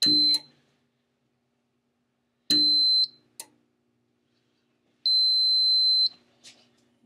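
Piezo buzzer of a Fire-Lite MS-4 fire alarm control panel giving a steady high-pitched beep three times as its connector is unplugged and plugged back in: first a brief beep, then one of about half a second, then one of about a second. There are small clicks of handling between the beeps.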